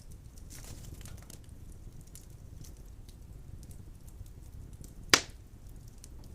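Wood fire burning in a fireplace: a low steady rumble with scattered faint crackles, and one sharp loud pop about five seconds in.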